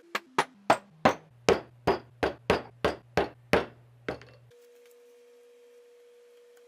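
Hammer striking metal, about a dozen sharp blows at roughly three a second, each ringing briefly, stopping after about four seconds.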